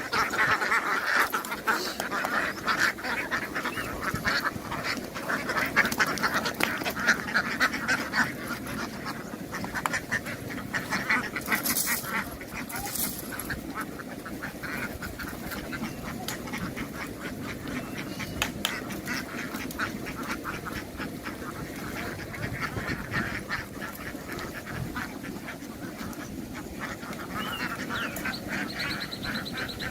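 A large flock of domestic ducks quacking constantly, many calls overlapping into a dense chatter.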